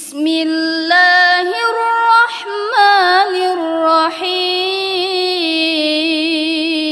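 A boy's voice chanting Qur'an recitation in the melodic tartil style, drawing out long vowels. Several melodic turns come in the first four seconds, then one long held note with a wavering pitch.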